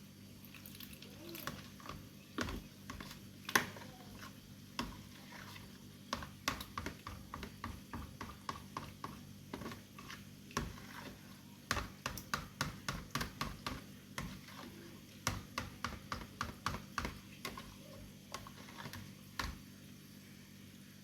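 A cooking utensil tapping and clicking in a pot of fish being stirred: scattered taps at first, then a quick run of about three to four taps a second through the middle, thinning out near the end.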